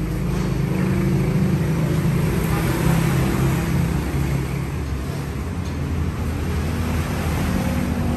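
An engine running steadily with a low hum, which drops in pitch about halfway through.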